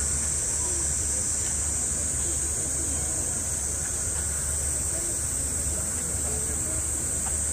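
Steady outdoor background: a constant high-pitched hiss and a low hum, with faint distant voices murmuring. No distinct sound from the elephants stands out.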